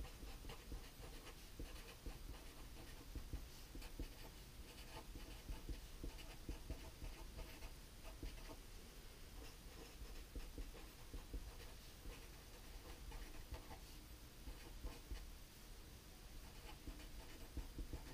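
Felt-tip marker writing on a sheet of paper: faint, irregular scratching strokes of the tip across the page.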